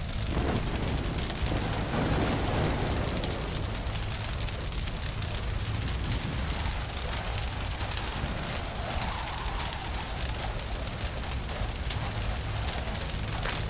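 Dark ambient sound bed of steady crackling, hissing noise over a constant low rumbling hum, like a fire burning in a wasteland.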